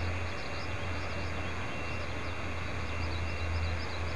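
Distant old-type Hokuriku Railroad electric train with nose-suspended traction motors running, heard as a steady low rumble. Small birds chirp rapidly and repeatedly over it.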